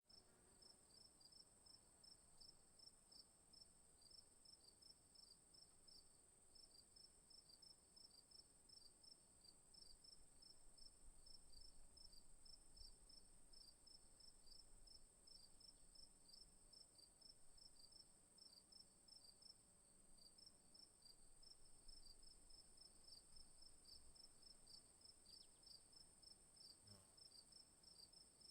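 Faint chorus of crickets chirping: a steady high-pitched trill with a quick run of short, evenly repeated chirps just below it.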